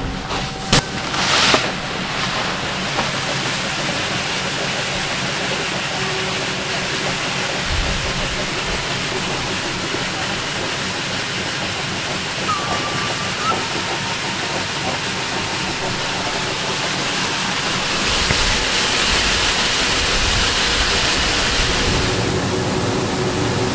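Rice-milling machinery running with a steady rushing hiss of motor and belt drive. Two sharp knocks come about a second in, and the noise grows louder for a few seconds near the end.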